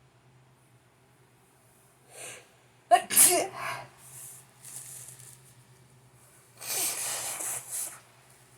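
A person sneezes once, sharply and loudly, about three seconds in, after a short intake of breath, then takes a few quick breaths and, near the end, lets out a longer noisy breath through the nose.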